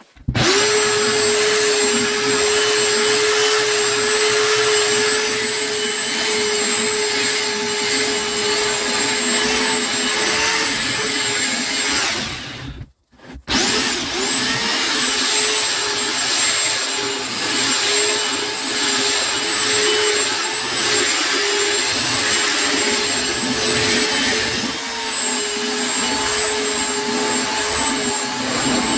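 Electric sander running steadily with a constant whine. It cuts out about twelve seconds in, then starts again a second later and spins back up.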